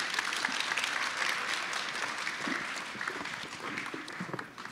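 Audience applauding, the clapping thinning toward the end, with a few footsteps of high heels on the stage in the second half.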